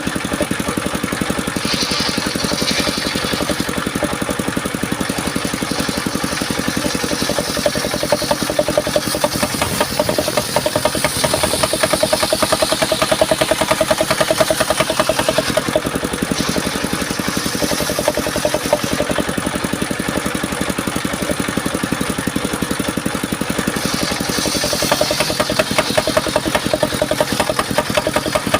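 Engine of a mobile circular-saw sawmill running steadily, with a higher-pitched sound swelling and fading several times over it.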